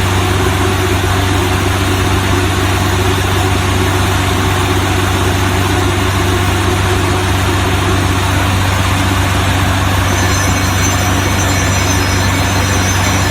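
Small DC motor of a homemade mini borewell drilling machine running steadily, a continuous loud hum with a whirring noise over it; a faint high whine joins about ten seconds in.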